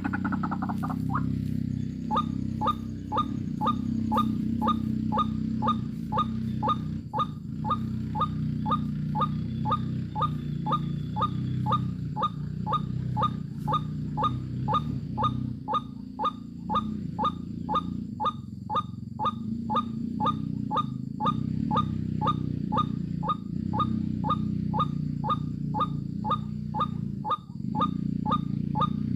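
A bird calling: a short, downward-sliding whistled note repeated at an even pace, two to three times a second, over a steady low rumble.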